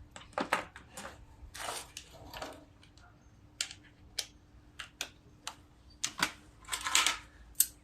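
Irregular light metallic clicks and knocks, with a few brief scraping rustles, as hand tools and parts are handled around a small lawn-mower engine.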